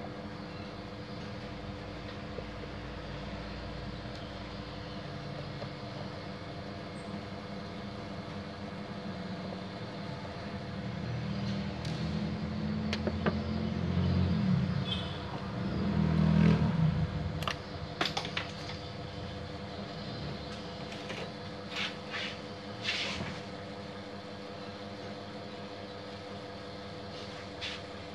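Scattered plastic clicks and knocks of a copier's roller unit being handled, over a steady background hum. A low rumble swells about halfway through and fades out a few seconds later.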